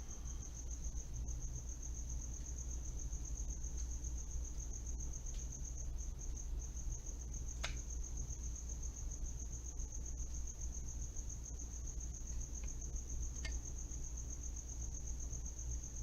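A cricket trilling steadily at a high pitch over a low hum, with two light clicks, one about halfway through and one near the end.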